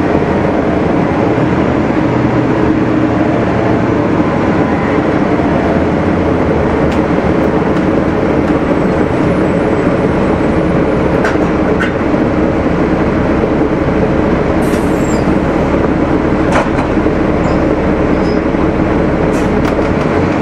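Cummins ISL inline-six diesel engine of a Gillig Phantom transit bus idling steadily, with a few faint clicks along the way.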